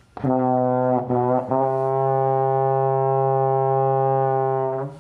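A low brass instrument, trombone-like, plays a few short notes, then one long steady low note that stops just before the end.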